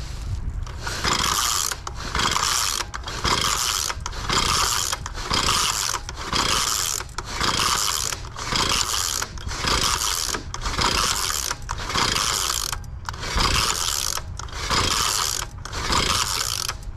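Small garden tiller engine being pull-started over and over: the recoil starter cord rasps out about once a second as the engine cranks, but it never catches and runs.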